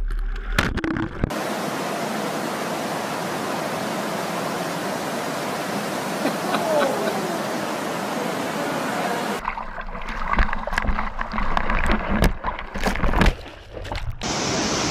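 Steady rushing of water from an indoor standing-wave surf machine, a thin sheet of water pumped up a padded slope. After several seconds it cuts off and gives way to a run of irregular knocks and splashes.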